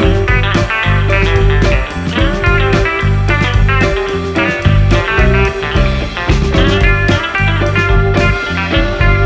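Background music: guitar-led instrumental with a steady beat and a bluesy, rock feel.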